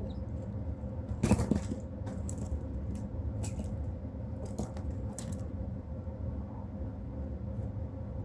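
A series of short, sharp rattling clicks, the loudest about a second in and the rest spread over the next few seconds, over a steady low hum.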